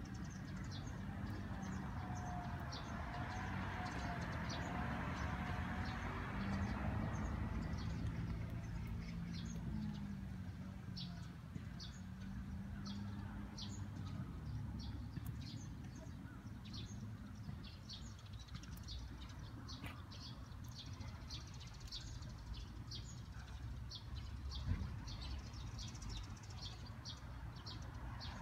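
Small birds chirping: short, high chirps repeated a few times a second, over a steady low rumble.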